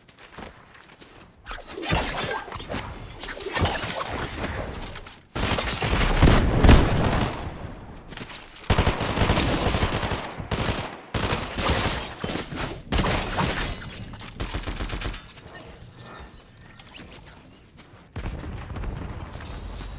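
Food sizzling and crackling in hot oil in a wok. The loud spells start suddenly several times and fade away near the end.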